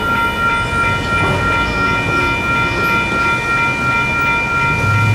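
Two WCH Gen 2 electronic railroad crossing bells ringing steadily at an activated grade crossing, over passing road traffic. A low hum comes in near the end.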